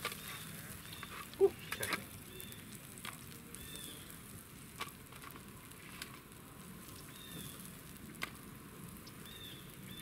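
Light clicks and taps from chicken-liver bait being handled in a plastic tackle tray over a steady faint background hiss, with one louder knock about one and a half seconds in. A few faint high chirps come and go.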